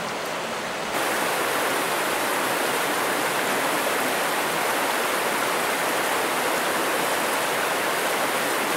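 Steady rush of flowing trout-stream water, stepping up in level about a second in and then holding even.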